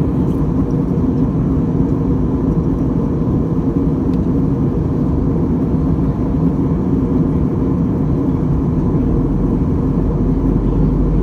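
Airliner cabin noise: a steady, loud low drone of engines and airflow with a faint constant hum. The deepest rumble grows stronger near the end.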